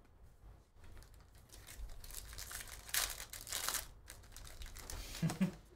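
Plastic trading-card pack wrapper crinkling and tearing as a pack of Donruss basketball cards is ripped open. The rustling is loudest about three seconds in.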